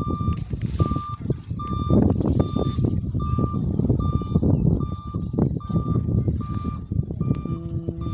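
A short high electronic beep repeats evenly, a little under once a second, like a reversing alarm. Under it is loud rumbling wind on the microphone and the rustle of tall grass being pushed through. A brief lower tone sounds near the end.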